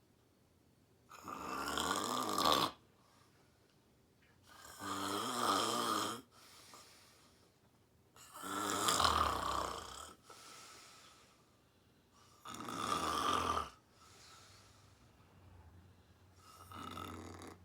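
A sleeping woman snoring, one snore about every four seconds. Each snore lasts a second or more, and the fifth begins near the end.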